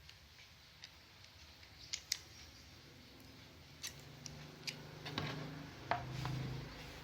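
Crimping tool snipping and clicking, several separate sharp clicks, while UTP network cable wires are trimmed and fitted to an RJ45 connector.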